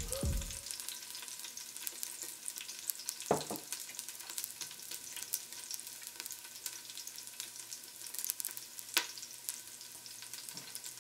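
Onions sizzling and crackling in hot oil in an Instant Pot's stainless inner pot on the sauté setting, a steady fry, with a couple of sharper clicks.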